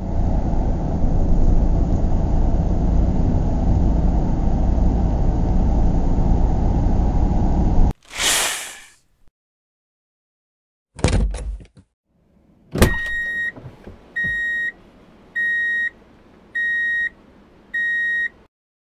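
Truck sound effects: a steady engine-like rumble for about eight seconds that cuts off suddenly, then a short whoosh, a click, and five evenly spaced electronic beeps like a truck's reversing alarm.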